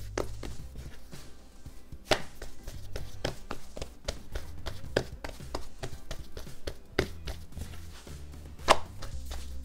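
Hands pressing and patting pizza dough out on a floured wooden table: a run of soft taps and thuds as the fingertips press it out, the loudest one near the end as the dough is lifted and stretched.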